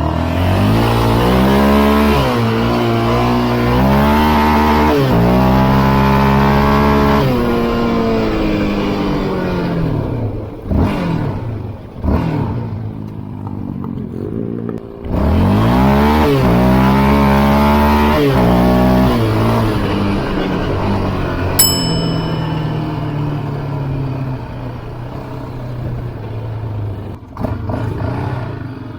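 An off-road vehicle engine is ridden hard: it revs up repeatedly, its pitch climbing and then dropping at each shift. It falls away about ten seconds in, revs hard again about fifteen seconds in, and then runs lower and steadier. A short sharp metallic ping is heard about twenty-two seconds in.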